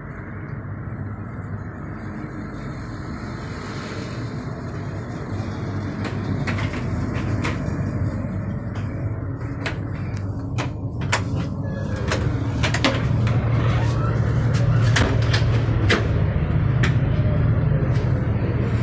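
Steady low rumble inside a railway passenger coach, growing louder, with a string of sharp clicks and knocks as a compartment door and its latch are handled.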